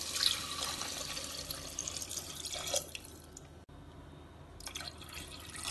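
Water poured from a jug into a pressure cooker of fried chicken and spice masala, splashing steadily for about three seconds. After that it goes quieter, with a few light sounds of a wooden spoon stirring the liquid.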